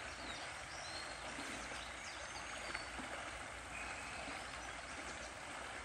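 Shallow creek running over a stony riffle: a steady rush of water, with a few short bird chirps in the first half.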